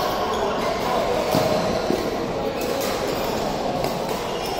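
Badminton rally in a large sports hall: a few sharp racket strikes on the shuttlecock, about a second apart, over a steady hum of hall noise and distant voices.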